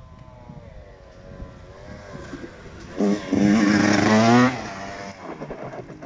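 1996 KTM 125 SX two-stroke single-cylinder engine, faint and distant at first, then loud as the bike comes closer and revs up with rising pitch about three seconds in, easing off after a second and a half.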